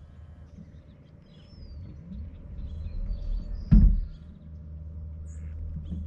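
Tesla Model 3 giving a single loud, dull thump about three and a half seconds in, as the brake is tapped while creeping forward at 3–4 mph, over the low rumble of the car rolling slowly. The thump comes at the start of the day, after reversing and then pulling forward.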